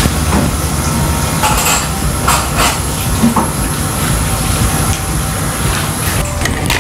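Steady low rumble, with a few faint scrapes and taps of a small kitchen knife cutting through set moong dal barfi against a steel plate.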